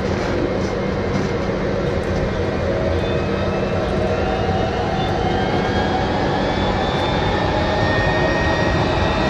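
Jet airliner takeoff sound effect: engines spooling up, a steady noise with a whine that slowly rises in pitch and grows a little louder toward the end.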